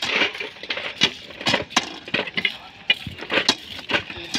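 Crushed-stone railway ballast clinking and grating as long iron bars are worked into it by hand to loosen and clean the stones. The strikes are sharp and irregular, a few each second.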